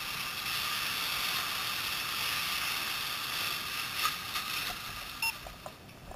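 Steady hiss of a fire hose stream spraying water onto a burning house, fading away about four and a half seconds in, with a few short clicks near the end.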